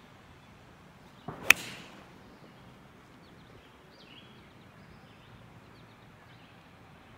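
Golf swing: a quick swoosh of the club on the downswing, then one sharp crack as the clubface strikes the ball about a second and a half in.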